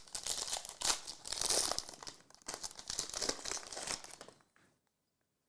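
Wrapper of a football trading-card pack crinkling and tearing as it is opened and the cards are pulled out, stopping about four seconds in.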